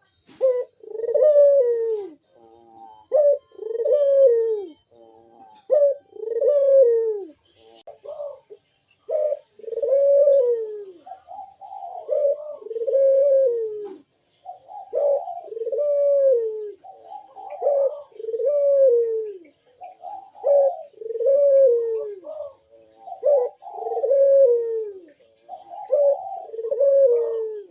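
Ringneck doves (burung puter) cooing: an unbroken series of low coos, each rising and then falling, about one every second and a half. Through the second half a second, higher coo at times overlaps the main one.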